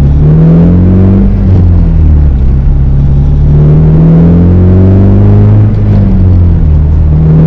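Honda Civic Si's K20Z3 four-cylinder engine pulling hard through the gears: the pitch climbs, drops at an upshift about a second and a half in, climbs steadily again, and drops at another shift near six seconds.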